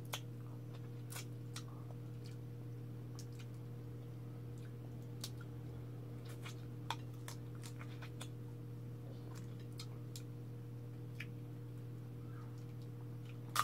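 Faint, scattered clicks and small cracks of cooked crab shell being pulled apart and sucked on by hand while eating, with a louder crack right at the end, over a steady low hum.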